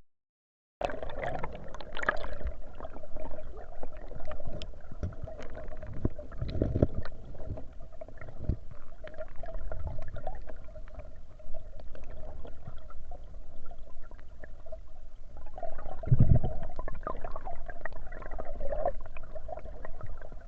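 Water gurgling and sloshing with a low rumble, scattered small knocks and a faint steady hum, after a brief cut-out at the very start.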